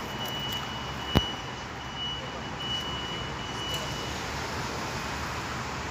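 Steady street background noise around parked fire engines, with a faint high-pitched beeping tone that comes and goes and stops about four seconds in. A single sharp click about a second in.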